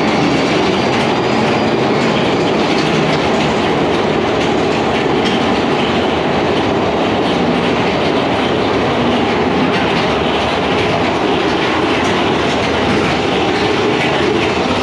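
Big Thunder Mountain Railroad mine-train roller coaster running along its track: a loud, steady rattling clatter of the cars.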